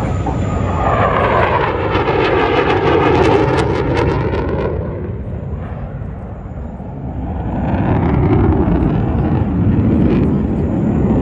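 Jet aircraft passing overhead: loud engine noise whose pitch falls over the first few seconds, then dies down around the middle and swells again.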